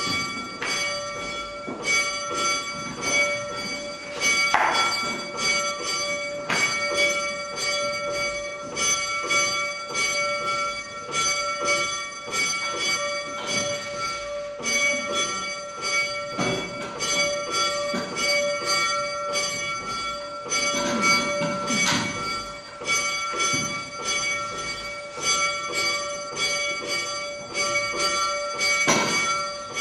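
A church bell tolling steadily, its strokes running together into one continuous ringing. A few sharp knocks sound now and then.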